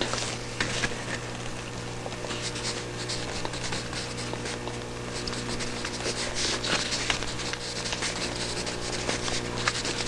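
Alvin Draft/Matic 0.5 mm mechanical pencil writing on spiral-notebook paper: continuous scratchy strokes, smooth but not quite smooth, with a little 'sh-sh-sh-sh' to them. A steady low electrical hum runs underneath.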